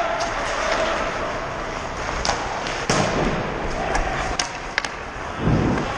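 Ice hockey play: a steady scraping hiss of skates on the ice, broken by sharp clacks of sticks and puck. The loudest clacks come about two and a half, three and four and a half seconds in.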